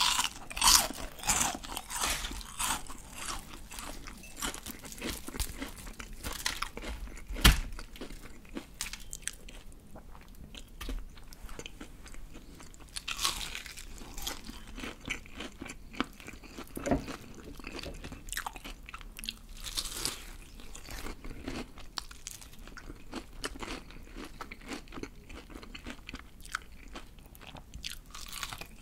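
Close-miked crunching and chewing of BBQ Golden Olive fried chicken, the thick crispy batter crackling with each bite. One sharp thump about seven and a half seconds in.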